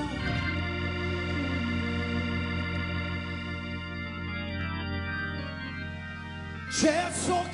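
Worship band's keyboard holding sustained organ chords over a steady low bass note, the chord shifting a couple of times. A singing voice comes back in near the end.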